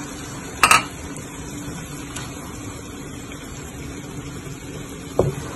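Ground onion paste sizzling in hot oil and butter in a steel frying pan as a wooden spoon stirs it, with one sharp knock against the pan about a second in and a duller knock near the end.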